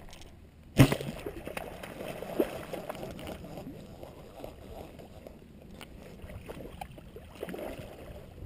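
Footsteps sloshing and splashing through shallow, muddy water in an uneven wading rhythm, with a sharp thump about a second in.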